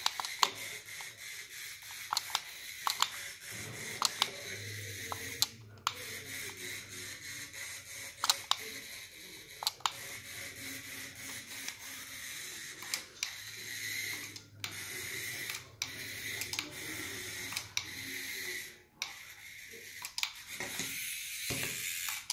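Small motor of a battery-powered toy mouse whirring as it runs on a hard stone counter, with many sharp clicks and clatters as it bumps along and tips over. The whir breaks off briefly several times.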